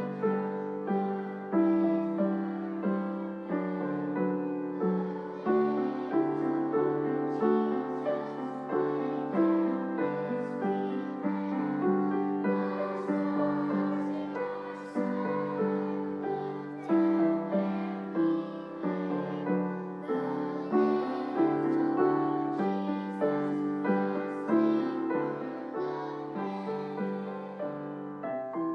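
Piano music, with notes struck one after another and left to ring.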